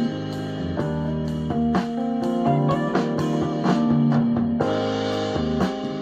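Music with guitar and drums playing through small Onkyo speakers driven by a Yamaha AX-592 stereo amplifier.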